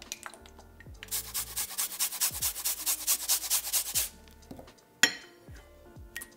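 A garlic clove grated on a fine metal grater: quick, even rasping strokes, about seven a second, for some three seconds, followed a second later by a single sharp click.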